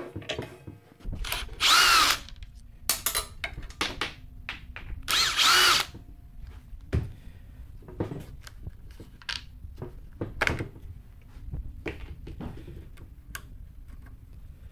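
Power drill running in two short bursts of about a second each, its pitch rising then falling, with clicks and knocks of metal parts being handled in between.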